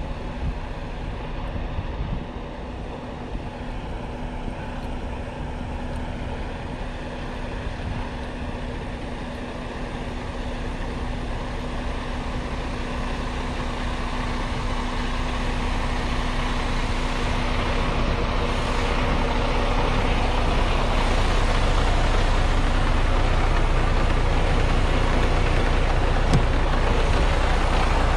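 Semi truck's diesel engine idling, getting steadily louder and then holding level for the last few seconds.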